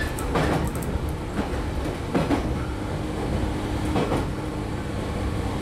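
Running sound heard inside a 115 series electric train's motor car: a steady low rumble of wheels and running gear, with a clack over the rail joints now and then. A steady hum joins about two seconds in.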